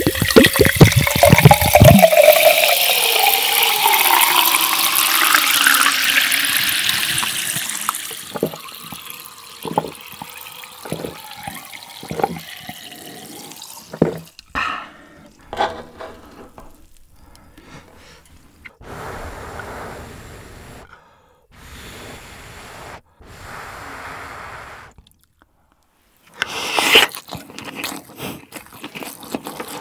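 A drink glugging out of a plastic bottle and pouring into a glass jar for about eight seconds, the tone of the filling jar rising steadily as it fills. Scattered light clicks and pops follow.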